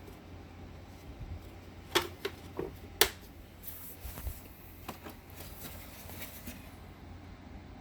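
Handling noise from a Hoover Taskvac upright vacuum: two sharp clicks about a second apart with a few lighter knocks between them, then a stretch of soft rustling.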